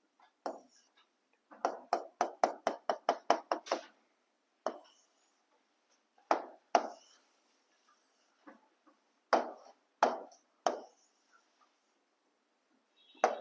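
Pen tip tapping and clicking on an interactive smart board screen while short strokes are drawn: a quick run of about a dozen taps, about five a second, starting a couple of seconds in, then single taps spread out.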